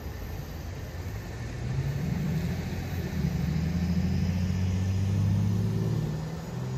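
A road vehicle's engine passing close by: its hum grows louder from about a second and a half in, peaks near the end with a slight shift in pitch, then begins to fade.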